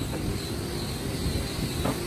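Steady mechanical hum of a wood-shop, with a single knock of a heavy wooden slab being shifted near the end.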